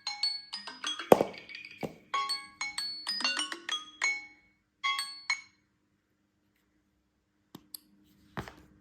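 A phone alarm tone playing a quick repeating pattern of bright, marimba-like ringing notes, with a sharp knock about a second in. The tone cuts off suddenly about five and a half seconds in, as when the alarm is dismissed; two faint clicks and a thump follow near the end.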